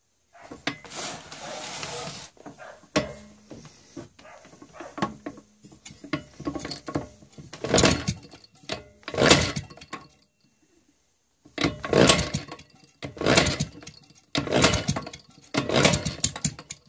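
Maytag Model 72 single-cylinder two-stroke engine being kick-started over and over: a string of short, loud turning-over sounds that never settles into running. The last five come about a second apart. The engine is hard to start after its rebuild, which the owner puts down to a weak spark.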